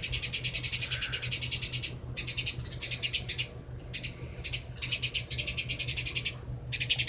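Small young bird giving rapid, high-pitched chirps, many a second, in runs of a second or two with short pauses: an agitated bird calling after falling into a water dish.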